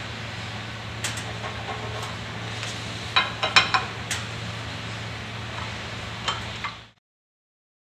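Metal clicks and clinks of a wrench with a 15/16-inch socket working the cover bolts of a Viking F-1/F-2 dry pipe valve, several close together a little past three seconds in, over a steady low hum. All sound cuts off suddenly about a second before the end.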